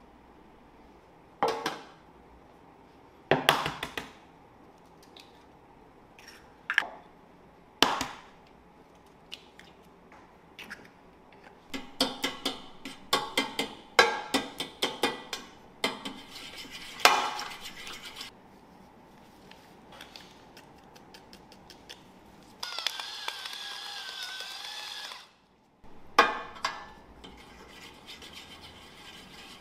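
Eggs cracked one by one on the rim of a stainless steel pan: four sharp knocks in the first eight seconds. Then a fork clicks and scrapes against the metal pan as the eggs are beaten, with a steady rasp of about two seconds and one more knock near the end.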